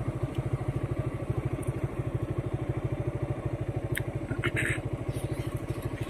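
A nearby engine running steadily with an even, rapid putter of about a dozen beats a second. A couple of brief clicks come about two-thirds of the way through.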